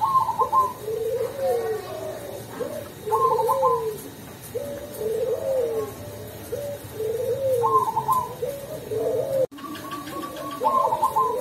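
Caged zebra dove (perkutut) of the cemani type singing its cooing song, with a soft, deep voice of the kind called 'ulem'. The rolling coo phrases repeat every few seconds, several of them opened by a short higher trilled note.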